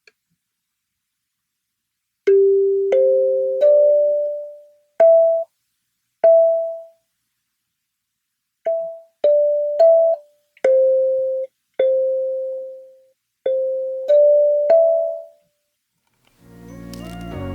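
A Gecko K17MBR 17-key kalimba, its metal tines plucked one at a time in a slow, simple melody of about a dozen notes, each ringing and fading away. Near the end, fuller background music with low notes fades in.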